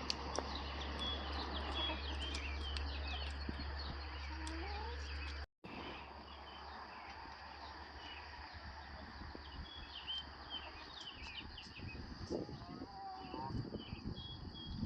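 Rural outdoor ambience with small wild birds chirping throughout and chickens clucking near the end. A steady low hum runs under the first half and stops at a sudden cut about five and a half seconds in.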